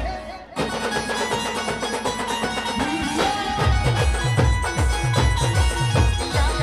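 Adivasi band playing a timli tune: held melody notes on the band's instruments, with a fast, steady drum beat coming back in about halfway through.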